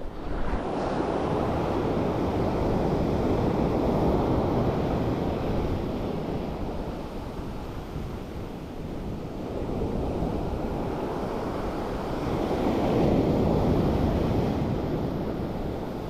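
Sea surf breaking and washing on a rocky shore, swelling about 4 seconds in and again near 13 seconds, with wind buffeting the microphone.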